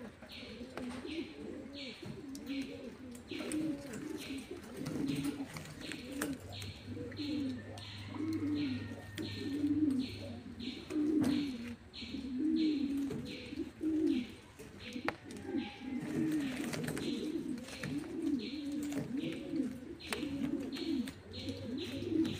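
Pigeons cooing continuously, many overlapping rolling coos. Behind them is a steady high-pitched pulse repeating about twice a second.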